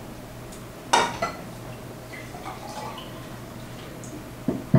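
A drink poured from a glass jug into drinking glasses, with sharp clinks of glass about a second in and again near the end.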